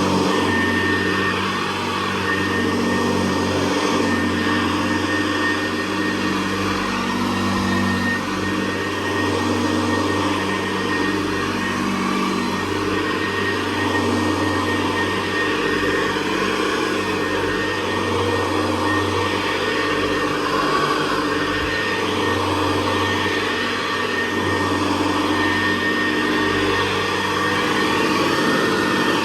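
Hoover Convertible Model 68 upright vacuum cleaner from 1961 running continuously on its normal setting over thin carpet. It gives a steady motor hum with a constant high whine, and the level swells and dips slightly.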